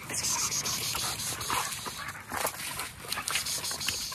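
Dogs scrambling and scuffling over dry leaves and grass as they lunge at and grab a swinging burlap sack, with irregular rustling and scraping.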